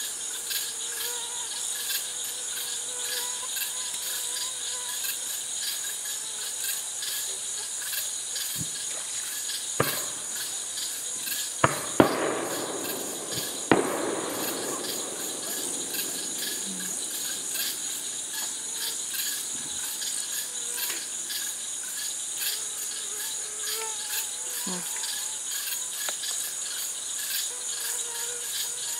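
Night insects chirping steadily and fast. Distant fireworks go off in the middle: four sharp bangs in about four seconds, the loudest one echoing away.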